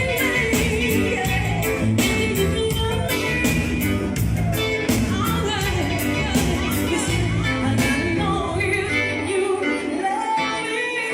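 Reggae music with a singing voice over a steady drum beat and bass line; the bass drops away about nine seconds in.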